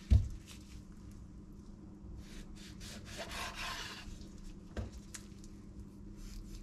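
Chef's knife cutting raw chicken wings apart on a wooden cutting board. The blade knocks loudly on the board at the start, then saws and scrapes through the meat for about a second midway, and knocks sharply again about five seconds in.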